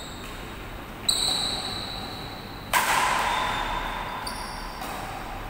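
Badminton rackets striking a shuttlecock in a rally, about four sharp hits with a ringing ping and echo, the loudest about halfway through.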